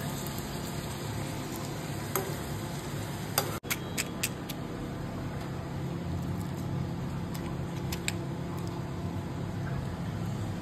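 Puchka puris frying in hot oil in a steel wok, a steady sizzle, with a few light clinks of a metal spoon against the pan. The sound drops out for an instant about three and a half seconds in.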